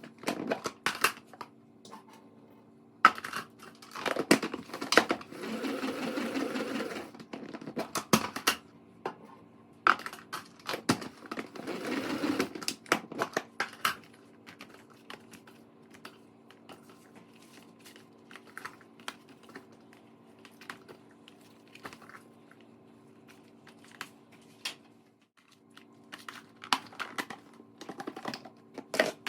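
Hands handling food containers and packaging: scattered clicks and taps with stretches of rustling and crinkling, over a faint steady hum.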